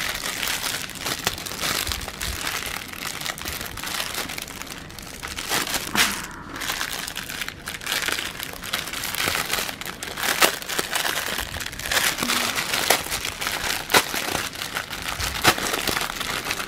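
Clear plastic bags crinkling steadily as hands handle a packet of small bagged diamond painting drills, with sharper crackles scattered through.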